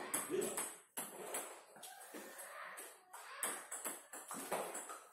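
Scattered light taps and clicks of a table tennis ball bouncing on the table and the tiled floor between points.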